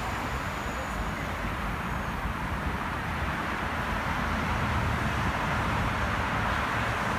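Steady road traffic noise from a busy multi-lane highway, a constant wash of passing cars and tyres with no single vehicle standing out.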